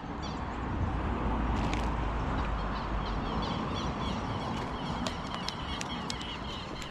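Steady rumble of highway traffic, with small birds chirping repeatedly over it and a few sharp clicks in the second half.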